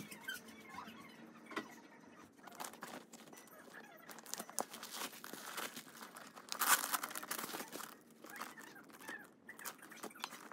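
Soft rustling and crinkling of tissue paper, a cloth dust bag and a leather handbag being handled as the bag is unpacked, with the loudest crinkle about seven seconds in.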